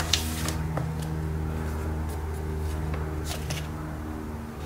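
A page of a rain-warped paper sketchbook being turned by hand, with a paper rustle near the start and again about three and a half seconds in, over a steady low hum.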